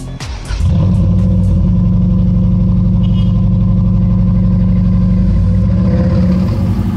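Turbocharged Subaru engine running steadily at idle, heard at its STI Genome exhaust tip. It comes in about half a second in as dance music drops out.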